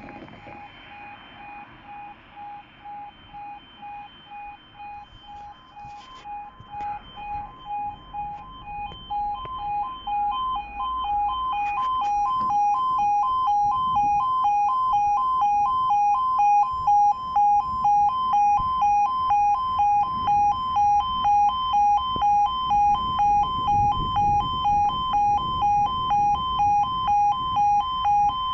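UK automatic level crossing warning alarm sounding a pulsing electronic tone about once a second while the crossing is closed for a train. It grows louder from about six seconds in and takes on extra high tones about twelve seconds in.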